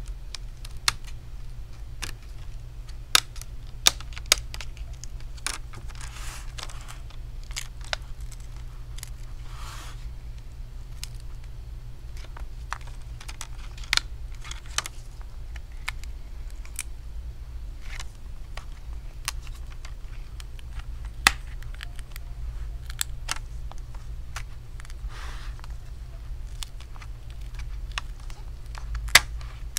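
Double-sided adhesive tape crackling and popping as a metal pry tool separates a laptop's plastic screen bezel from the display, in scattered sharp clicks with a few short scraping swishes.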